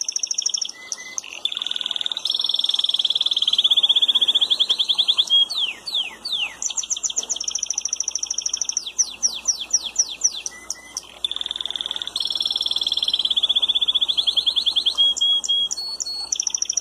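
Spanish timbrado canary singing: long, high, rapid trills of fast-repeated notes, broken twice by runs of quick downward-sweeping notes. The song pauses briefly about two-thirds of the way through, then the trills resume.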